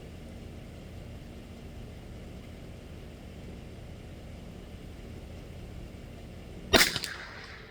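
A single shot from a Savage Mark II FV-SR .22 LR bolt-action rifle about seven seconds in: one sharp crack with a brief ring after it, over a steady low rumble.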